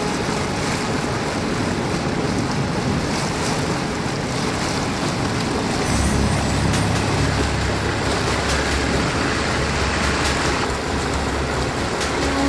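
Small boat motors running steadily under way, with wind and water rushing past. A deeper, louder low hum sets in about halfway through.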